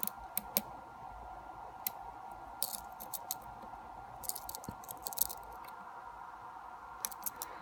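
Lock pick working the pins of a pin-tumbler lock: small, scattered clicks and ticks, some in quick clusters, as the pins are lifted and set under tension. A faint steady hum runs underneath.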